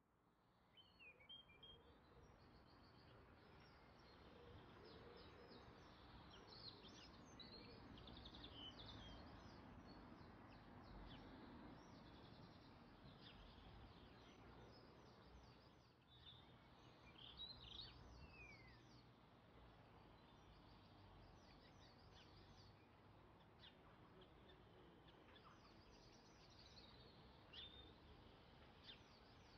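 Faint birds chirping over a steady background hiss, with quick series of short high chirps coming and going throughout.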